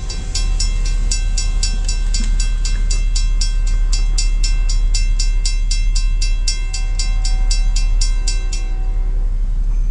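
Railroad crossing warning bell ringing rapidly, about five strikes a second, while the crossing gates lower; it stops near the end. A steady low rumble runs underneath.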